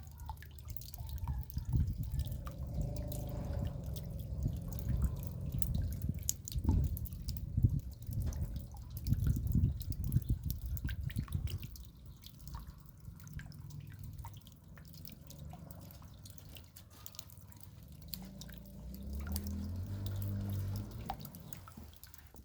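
Raindrops dripping in many small, irregular drips over a low rumble that is strongest in the first half.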